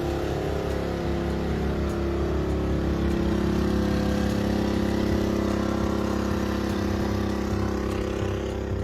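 An engine running at a steady speed, holding one even pitch throughout.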